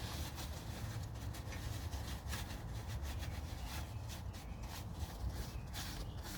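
Rag wiping and rubbing spilled oil off the underside of the engine around the oil filter, in short irregular strokes.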